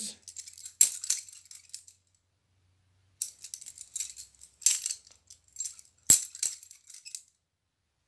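Steel butterfly knife flipped quickly, its handles and latch clacking and rattling against the blade in runs of metallic clicks. There is a pause of about a second after the first run, and the sharpest clacks come about a second in and near the end.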